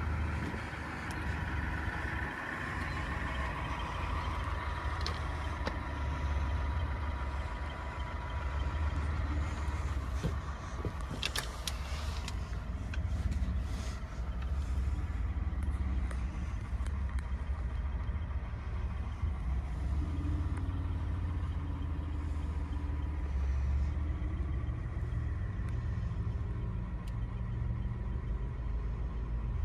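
Ford F-150 pickup's engine idling steadily, with a few sharp clicks about eleven to fourteen seconds in.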